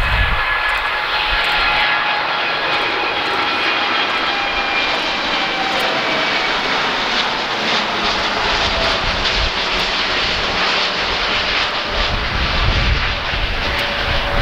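Boeing 787-8 Dreamliner's two Rolls-Royce Trent 1000 turbofans at takeoff power as the airliner climbs out overhead: a loud, steady jet noise with whining tones that slowly fall in pitch as it passes. Wind buffets the microphone near the end.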